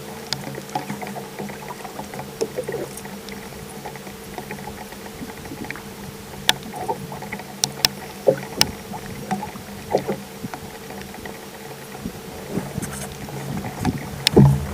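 Boat motor running with a steady hum, with a few sharp clicks and knocks scattered over it.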